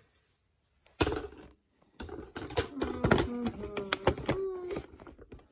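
Cardboard advent calendar door pushed in with a sharp knock about a second in, then a quick run of clicks and crinkles as a foil bag is pulled out of the compartment.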